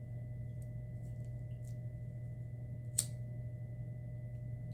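Steady low electrical hum with faint steady high-pitched tones, and one sharp click about three seconds in.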